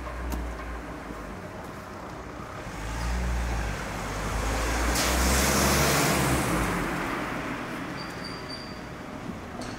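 A car driving past on a city street, its engine and tyre noise swelling to a peak about halfway through and then fading, over a low traffic rumble.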